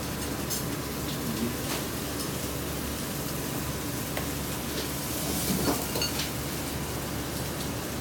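Steady hiss of a working Chinese restaurant kitchen, like frying at the stations, with a few light clicks and clinks of utensils, the busiest about five to six seconds in.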